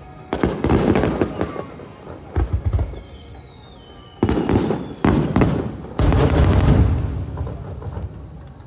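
Fireworks bursting overhead: about five sudden booms with crackling, the last and longest rumbling away over a couple of seconds, and a couple of falling whistling tones between the bursts.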